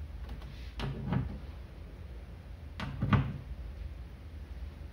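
Patch-lead plugs being pushed into the jacks of a relay trainer panel: several short clicks and knocks, the loudest about three seconds in, over a low steady hum.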